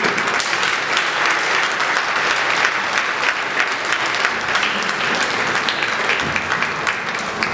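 Audience applauding, a dense patter of many hands that thins out near the end.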